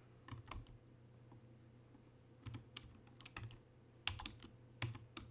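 Computer keyboard being typed on: about ten separate key presses, some in quick pairs, as key combinations are entered.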